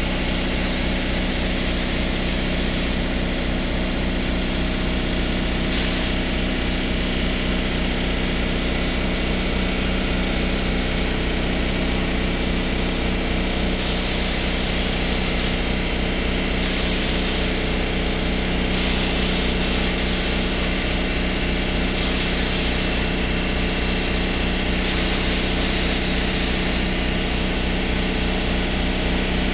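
Eastwood Concours low-consumption paint spray gun hissing in bursts as the trigger is pulled: one long pass at the start, a short one a few seconds later, then five passes in the second half. Under it a small garage air compressor runs with a steady hum.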